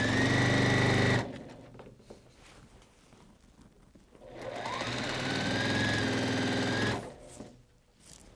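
Juki sewing machine stitching a seam in two runs. It runs at speed and stops about a second in. After a pause of about three seconds with only faint small noises, it starts again with a rising whine, runs steadily for about two and a half seconds, then stops.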